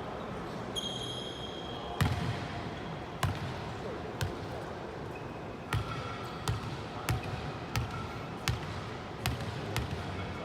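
A volleyball bounced repeatedly on a gym floor, a few scattered bounces and then a steady run of about one to two a second in the second half. A shoe squeaks on the court floor near the start.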